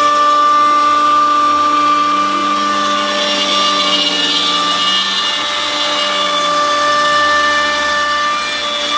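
DeWalt DWP611 router spindle running at about 18,000 rpm on an OpenBuilds Big Ox CNC router, its 1/4-inch carbide end mill cutting into pine, together with a shop vacuum sucking up the chips at the bit. A loud, steady whine made of several held tones over a hiss.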